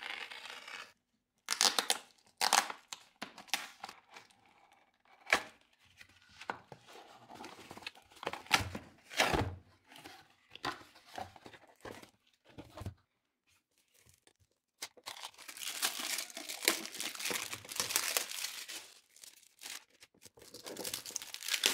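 A cardboard shipping box being opened: a blade scraping and slicing along packing tape, tape and cardboard tearing, and flaps knocking in a run of irregular scrapes and clicks. After a short pause, in the last several seconds, plastic wrap crinkles steadily as a wrapped carrying case is handled.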